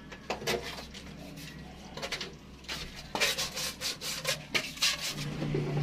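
Irregular scraping and rubbing strokes from hand work, a few early on and a quicker run of them in the second half.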